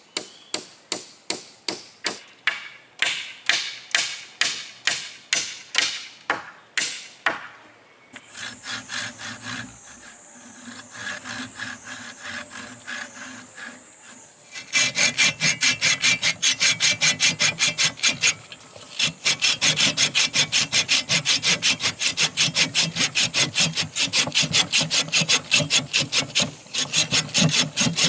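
Hand saw cutting wood in steady back-and-forth strokes. They start slow and spaced, then from about halfway in turn quicker and louder, about four strokes a second, with a brief pause near two-thirds of the way.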